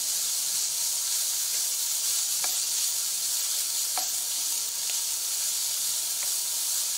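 Ground beef sizzling as it is stir-fried with garlic and onion in a non-stick wok, being browned until it changes colour. A wooden spatula scrapes and taps the pan a few times.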